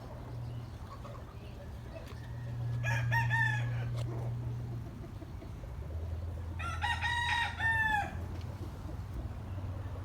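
A chicken crowing twice, about three seconds in and again about seven seconds in, each call about a second long and dropping in pitch at the end, over a steady low hum.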